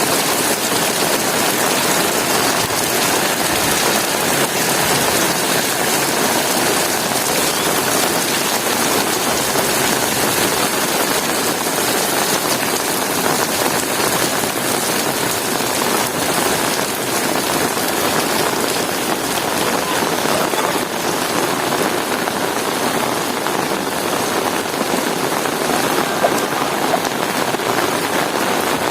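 Heavy rain falling steadily: a dense, even hiss of drops that does not let up.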